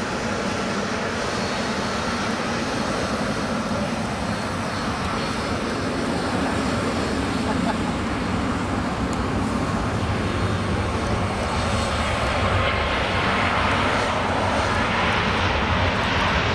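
Airliner engines running steadily, growing a little louder in the last few seconds.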